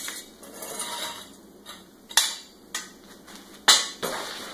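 Metal frame rods of a lawn sweeper's hopper knocking and clinking as they are handled: a few sharp metallic knocks, the loudest about three and a half seconds in, with some rustling between them.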